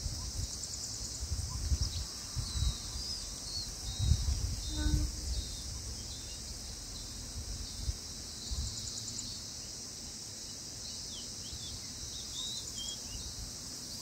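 Insects droning steadily at a high pitch, with short, faint, high bird chirps scattered over the drone. Low wind rumbles on the microphone come in the first few seconds.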